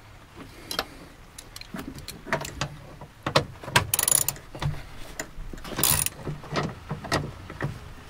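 Hand ratchet with a Torx bit clicking in uneven strokes as it backs out a seat belt anchor bolt, with two short rasping runs about four and six seconds in.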